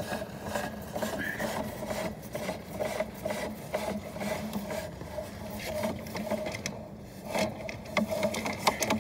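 Sewer inspection camera's push cable being fed by hand down a 2-inch ABS roof vent, rasping and rubbing against the pipe in repeated strokes about twice a second, with a few sharper clicks near the end.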